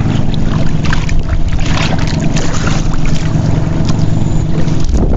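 Engine of a small outrigger fishing boat running steadily, a continuous low drone.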